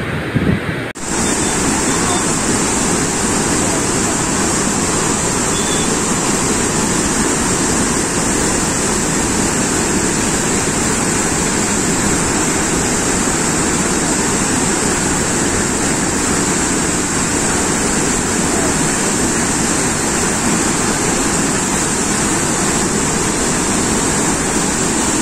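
Water released from a dam rushing and churning in the turbulent pool below the spillway: a loud, steady rush, broken by a brief drop about a second in.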